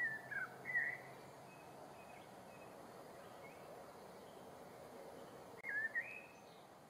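A bird calling in two short bursts of quick phrases that slide up and down in pitch, one at the very start and another about six seconds in. Between them there are a few faint, higher chirps over a steady background hiss.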